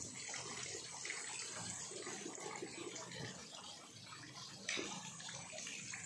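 Water splashing and churning as catfish crowd and thrash at the surface of a concrete pond for thrown feed, with one sharper splash a little under five seconds in.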